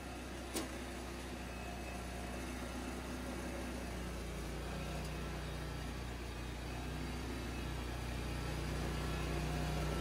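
Loncin 764 cc twin-cylinder petrol engine of a remote-control flail mower running steadily just after starting, getting a little louder toward the end. A single sharp knock comes about half a second in as the engine hood is shut.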